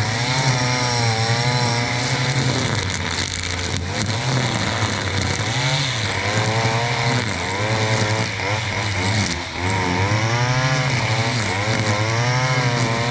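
Stihl FS 461 C-EM brushcutter's two-stroke engine running at high speed while cutting undergrowth, its pitch repeatedly dipping under load and recovering.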